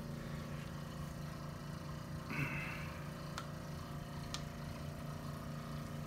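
Two faint, sharp pops about a second apart from the patient's foot joints during a chiropractic foot adjustment, over a steady low mechanical hum. A short breathy hiss comes just before the pops.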